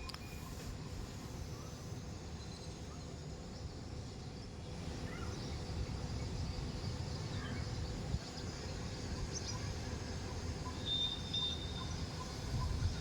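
Wind rumbling on the microphone, with faint scattered bird calls and a short high two-note call near the end.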